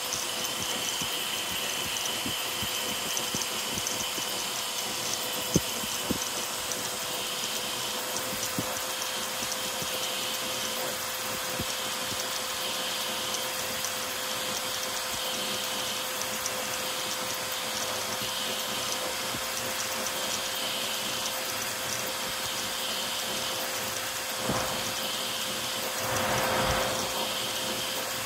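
A CoreXY 3D printer printing fast, with its stepper motors and cooling blower making a steady whir and a pulsing whine as the toolhead moves. There is a sharp click about five seconds in and a louder rush of movement near the end.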